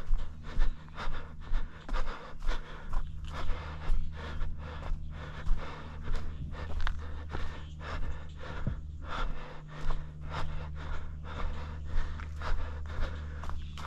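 A runner's heavy panting, loud quick breaths in a steady rhythm of about two a second, from the effort of running.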